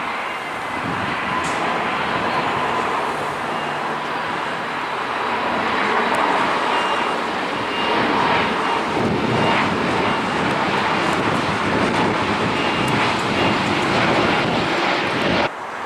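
Airbus A320neo-family airliner with Pratt & Whitney geared turbofan engines climbing out at takeoff thrust: a steady jet roar with a faint high whine, growing a little louder past the middle as it passes near overhead. The sound cuts off sharply near the end.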